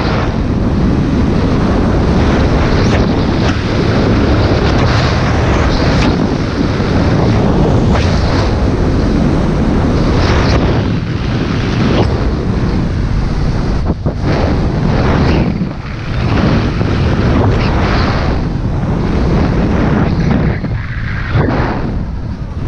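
Wind buffeting a camera microphone on a skier moving fast downhill, over the hiss and scrape of skis carving turns on packed snow, with a brighter scrape every second or two.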